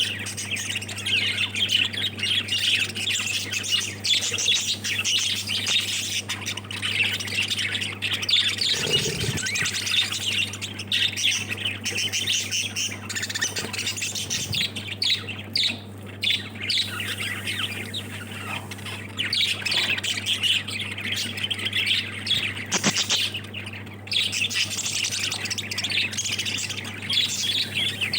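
A flock of pet lovebirds chattering and squawking continuously, many overlapping shrill calls, over a steady low hum.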